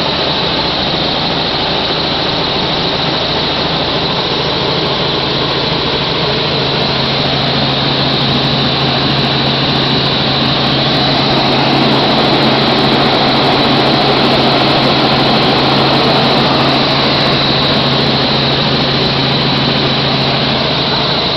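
Helicopter cabin noise in flight: engine and rotor noise running loud and steady, with a constant low hum under a high whine. It grows slightly louder about halfway through.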